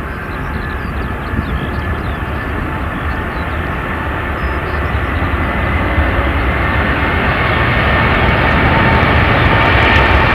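Boeing 777-300ER's twin GE90-115B turbofans at takeoff thrust as the jet accelerates down the runway, the noise growing steadily louder as it comes closer. Steady high tones sit over a deep rumble.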